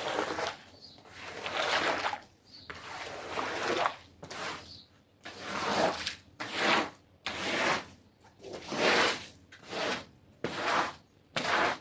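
Repeated wet scraping strokes of a hand tool worked across a soaked carpet, about one stroke a second, with a squish of water in each.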